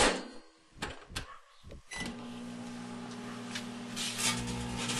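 Microwave oven door shut with a knock and a few clicks, then the oven starts running with a steady hum about two seconds in. From about four seconds in, rapid crackling as the matchbook and the CD inside start to arc.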